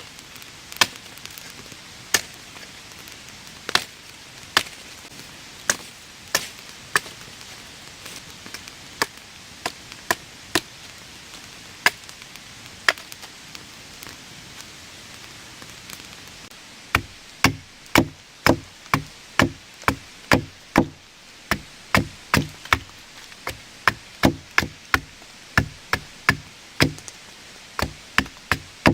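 Wood being chopped: sharp, irregular strikes at first, then about two-thirds in a fast run of heavier blows, roughly two a second.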